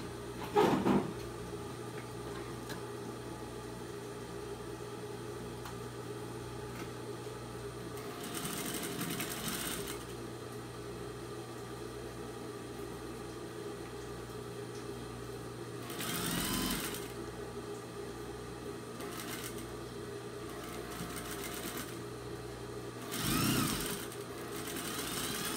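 Industrial sewing machine with a steady motor hum, speeding up into three short runs of stitching through cotton fabric, about 8, 16 and 23 seconds in. A loud knock comes about half a second in.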